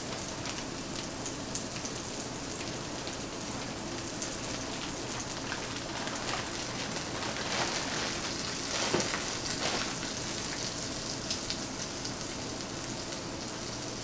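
Sausage patties sizzling in a frying pan: a steady hiss with fine crackling pops. A plastic bag rustles briefly about halfway through.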